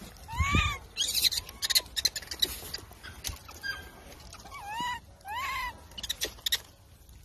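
Baby macaque giving short arched cooing calls: one about half a second in, then two close together near the end. Scattered crackles and clicks of dry leaves and twigs come in between.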